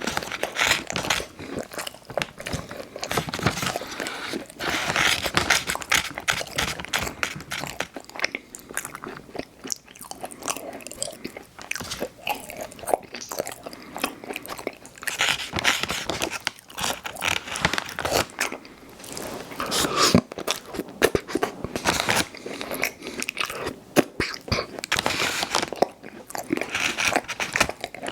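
Close-miked biting and chewing of Chips Ahoy! Chewy Hot Cocoa cookies, a steady run of wet crunches and crackles that swells with each fresh bite.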